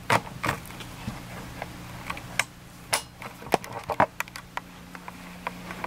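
Camera handling noise: scattered clicks and light knocks as the camera is moved and gripped, over a faint steady low hum.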